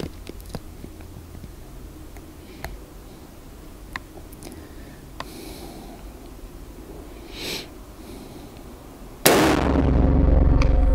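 Quiet room tone with a few faint clicks and breaths, then about nine seconds in a single loud rifle shot from a Schmidt-Rubin 1896/11 firing a 7.5×55 mm Swiss GP11 round, cut straight into steady background music.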